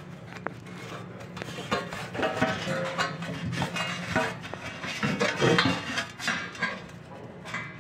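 Irregular metallic clanks and clinks, of the kind steel studs and track make when handled, over a steady low hum. The clanking is loudest about two seconds in and again a little past the middle.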